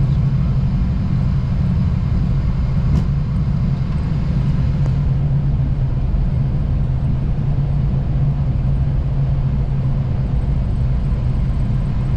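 Cockpit noise of a Boeing 737-800 rolling out and turning off the runway after landing: a steady low rumble of the wheels on the runway and the engines, with a couple of faint clicks about three and five seconds in.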